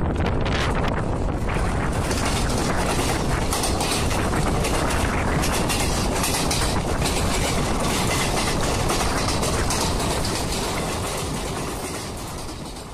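Two trains crossing, heard from the open door of a moving train: an express behind an electric locomotive rushes past on the next track, with a dense clatter of wheels over rail joints and wind noise. The sound fades out over the last few seconds.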